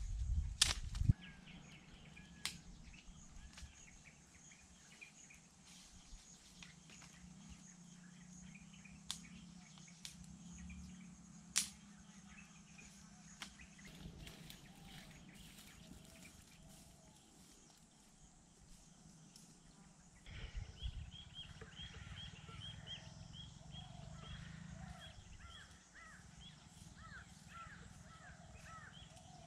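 Quiet outdoor ambience with a low thump in the first second and a few sharp clicks. About two-thirds of the way through, birds start calling in a quick, busy run of short chirps that carries on to the end.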